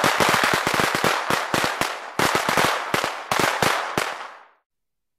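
Bangers (firecrackers) going off in a rapid, irregular string of sharp bangs over continuous crackling, dying away about four and a half seconds in.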